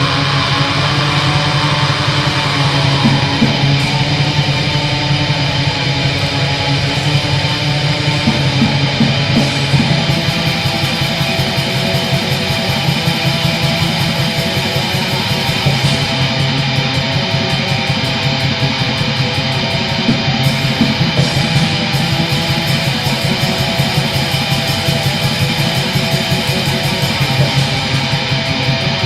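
Black metal: distorted electric guitars tremolo-picking over bass and rapid drums, with no vocals.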